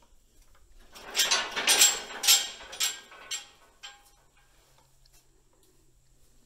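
Rattling and clanking of a rusty barred metal gate, in a run of five or six sharp strikes starting about a second in and stopping after about three seconds.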